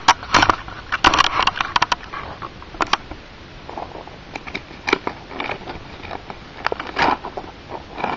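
Plastic packet crinkling and rustling as a bundle of silicone rubber bands is tipped out and handled on a sheet of paper: a dense run of crackles for the first couple of seconds, then sparser scattered clicks and rustles.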